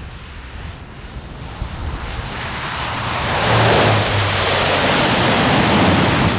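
An HC-130J's four turboprop engines and propellers running loud as it touches down on a dirt strip and rolls out, with a low steady drone under a rushing roar. It grows louder from about three seconds in as the aircraft passes close, then cuts off abruptly.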